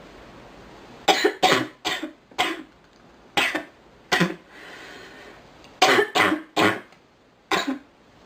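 A girl coughing about ten times in short bouts: four quick coughs, then two, then three in a row, and a last one near the end.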